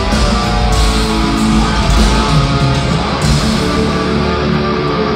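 Heavy metal band playing live in an arena, heard through a phone's microphone from the stands: loud distorted electric guitars over a continuous band sound.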